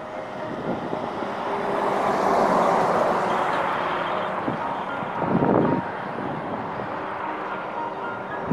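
Road traffic, with a motor vehicle passing that is loudest about two to three seconds in, and a short louder burst of noise a little after five seconds.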